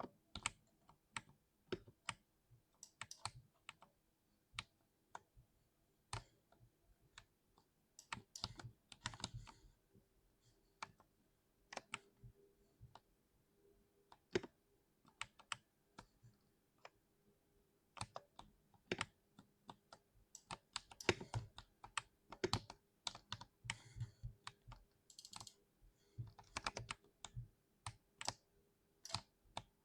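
Typing on a compact 60% keyboard: irregular single keystrokes broken by quick runs of fast typing, with a faint steady hum underneath.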